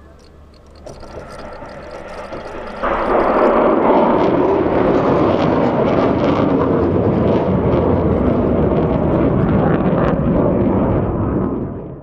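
Solid-fuel sounding rocket motor at lift-off: a low rumble that swells, then about three seconds in jumps to a loud, steady roar that holds until it cuts off suddenly.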